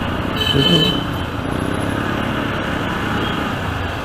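Steady riding noise of a motorcycle in city traffic: engine, road and wind blend into a constant rush. A short high-pitched tone sounds about half a second in.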